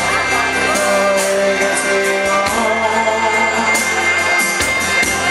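Live Celtic folk-rock band playing: acoustic guitar, bass guitar, accordion and a drum kit with regular cymbal strokes, with a male lead vocal.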